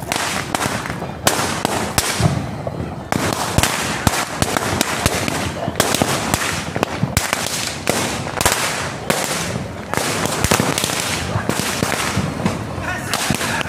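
Firecrackers going off in a long, irregular string of sharp cracks, several a second, with no letup.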